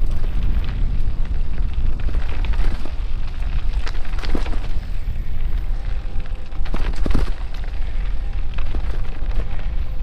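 Heavy wind buffeting and rumble on a camera microphone while riding a rough dirt trail, with sharp knocks from jolts a little past four seconds and twice near seven seconds.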